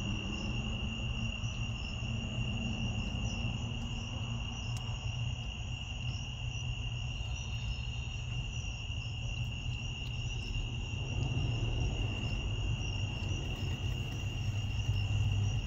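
Insects trilling in one steady, unbroken high note, over a low steady rumble.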